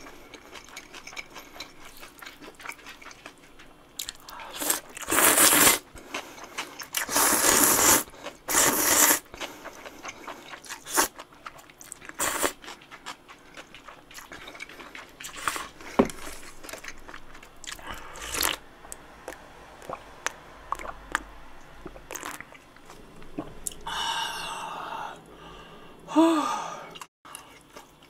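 Close-miked eating of cold buckwheat noodles in broth and dumplings: three loud slurps about five to nine seconds in, then wet chewing with small clicks and smacks, and a crunchy bite into a fried dumpling near the end.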